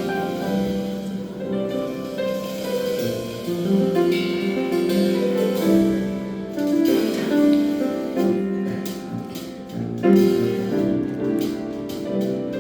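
Live concert music: an ensemble playing held, overlapping notes, with some sharp percussive strikes in the later seconds.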